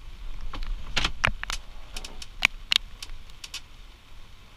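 A quick run of about a dozen sharp, irregular clicks and taps, the loudest about halfway through, over a low rumble.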